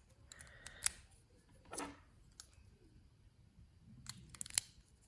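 AAA batteries being fitted into a small LED flashlight's plastic battery holder: light clicks and rattles, one about a second in, another near two seconds, and a quick run of clicks near the end.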